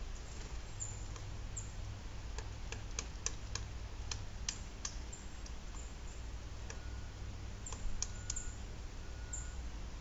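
Irregular sharp taps and clicks, about a dozen over several seconds, from animals feeding at a tree-mounted feeder, with short high bird chirps and a steady low rumble underneath.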